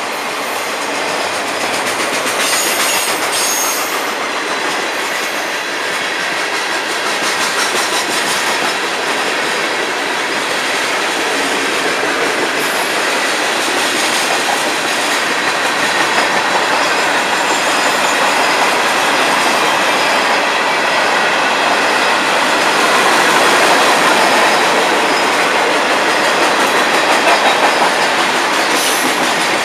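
Freight cars of a long Florida East Coast Railway train rolling past: steady noise of steel wheels on the rails, slowly getting a little louder.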